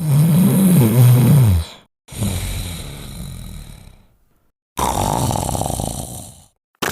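Sleeping Labrador snoring: three snoring breaths in about seven seconds. The first is the loudest and longest, with a pitch that wavers up and down; the next two are breathier.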